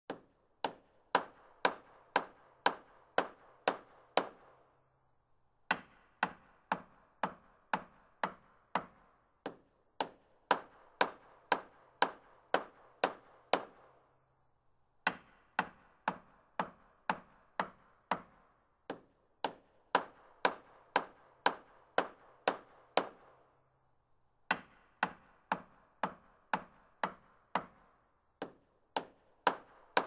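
A hammer striking wood in sharp, evenly spaced blows at about two a second. The blows come in runs of several seconds, with pauses of a second or so between runs.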